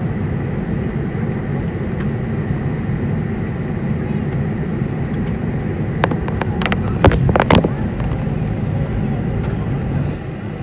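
Airbus A380 cabin noise while taxiing: a steady low rumble of the engines and the aircraft rolling, with a faint high whine. A brief cluster of sharp clicks and knocks comes about six to seven and a half seconds in.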